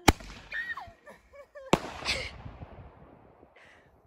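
Two sharp firecracker bangs about a second and a half apart, each trailing off briefly, with a short yelp between them.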